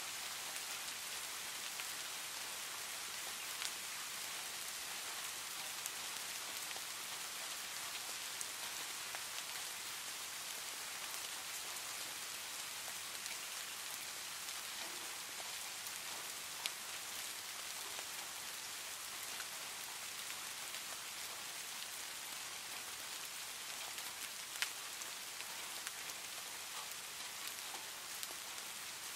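Steady rain, an even hiss with no let-up, with a few short clicks over it and one sharper click late on.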